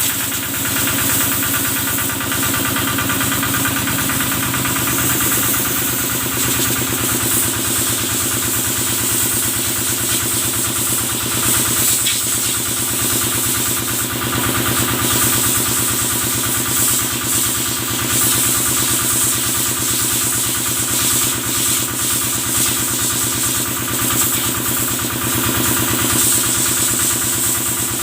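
Kubota engine driving a cattle-washing sprayer, running steadily with a fast, even knocking beat. A hiss of spraying water runs over it.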